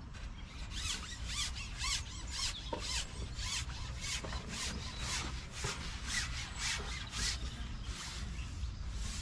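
A carbon match-fishing pole being shipped out in steady pushes, rubbing and squeaking as its sections slide along, about twice a second.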